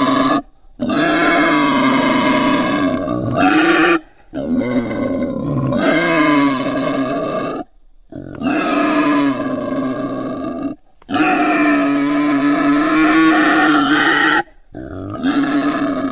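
Wild boar grunting, a run of loud pitched calls in stretches of about three seconds broken by short silent gaps.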